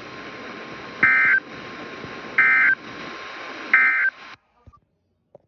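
Emergency Alert System end-of-message signal: three short, loud two-tone data bursts, roughly a second apart, over steady broadcast hiss. They mark the end of the weather warning message, and the hiss cuts off suddenly after the third burst.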